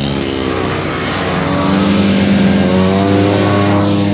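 Vintage Skee-Horse snowmobile's two-stroke engine accelerating past, its pitch rising, then dropping sharply near the end as it goes by. Other vintage snowmobile engines run behind it.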